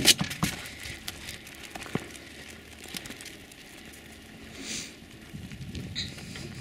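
A few sharp knocks right at the start as a dog jumps down out of a crate in a car's cargo area, then footsteps crunching irregularly on a gravel road.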